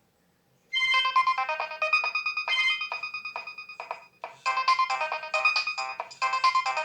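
Nokia 6100 mobile phone playing one of its built-in ringtones through its speaker: a fast melody of short, bright notes that starts about a second in, with a brief break a little past the middle.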